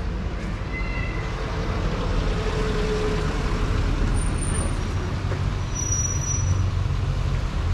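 Road traffic noise: a motor vehicle running steadily with a low rumble.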